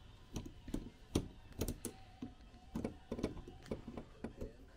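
Screwdriver and small metal parts clicking and tapping on a snowmobile twin carburetor as it is taken apart by hand; irregular light clicks, a few each second.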